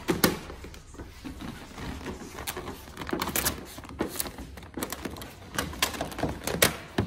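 About ten sharp clicks and knocks at irregular intervals over a faint low hum.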